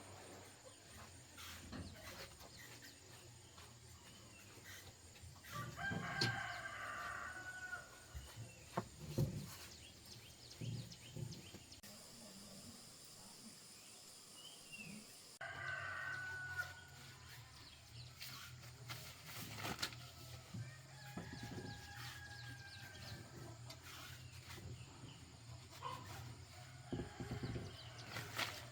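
Rooster crowing, faint, about six seconds in and again around sixteen seconds, with scattered knocks and clicks.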